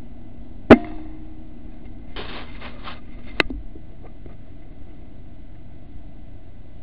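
A single air rifle shot, a sharp report about a second in with a brief ring after it, followed by a short rattle and another sharp click.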